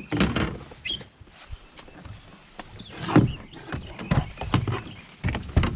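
Irregular knocks and thumps on a plastic kayak while a small, just-landed bass is handled, the loudest about three seconds in and several more near the end.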